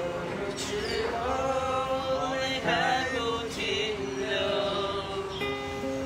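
Acoustic guitar accompanying singing voices in a slow song, the voices holding long notes that slide in pitch.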